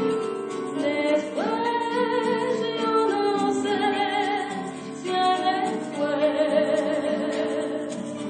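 Music: a song sung by several voices with accompaniment, with long notes held with vibrato.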